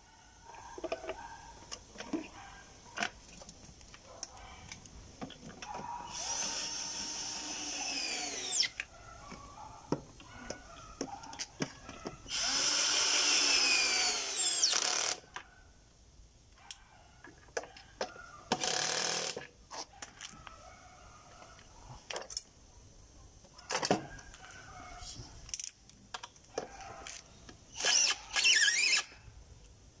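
Cordless drill-driver driving screws into a plastic fiber optic splice closure, in several runs of one to three seconds, the pitch dropping as a run ends. Clicks and knocks from handling the closure come between the runs.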